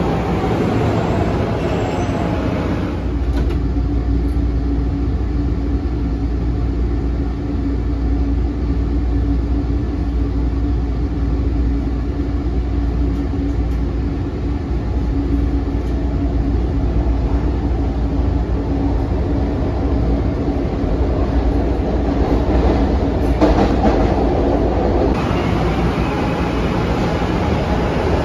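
SEPTA Market–Frankford Line subway train, likely one of its M-4 cars. First it is heard from the platform with a whine that falls in pitch. After about three seconds it is heard from inside the moving car in the tunnel: a steady low rumble with a constant hum. Near the end it is heard from a platform again.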